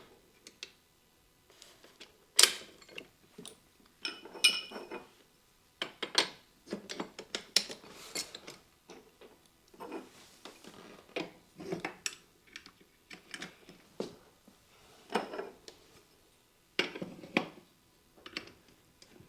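Peri chair extensions being fitted into the chair's seat frame: irregular clicks, knocks and clinks as the parts are handled and pushed together.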